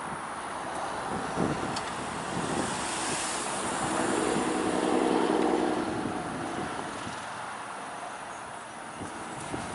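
A single diesel locomotive passing, its engine sound building to a peak about five seconds in and then fading, with wind on the microphone.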